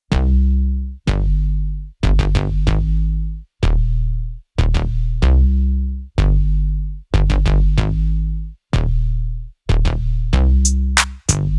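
Electronic music with a heavy bass-drum beat, about one hit a second, and crisp hi-hats.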